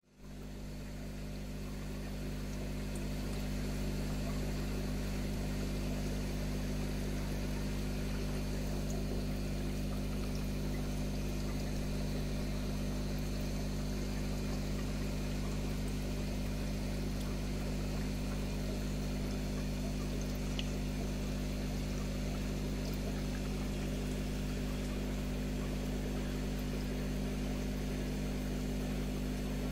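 Steady low hum of an aquarium pump with a faint hiss above it, fading in over the first few seconds and then holding level.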